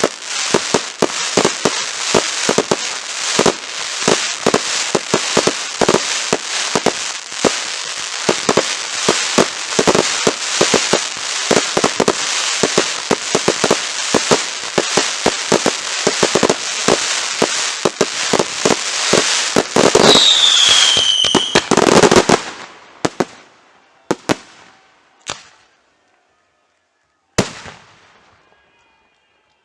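Fireworks display: a rapid, continuous barrage of bangs and crackles, rising to its loudest around two-thirds of the way in with a whistle falling in pitch. It then thins to a few last single bangs as the display ends.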